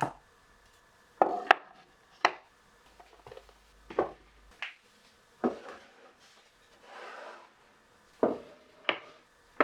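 Hard objects knocking and clacking on wood, about ten sharp separate knocks at uneven intervals, with a short sliding rub about seven seconds in.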